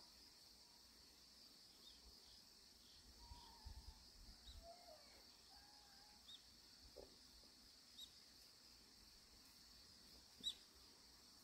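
Near-silent outdoor ambience: a steady high insect drone, like crickets, with a few short, sharp bird chirps, the loudest near the end.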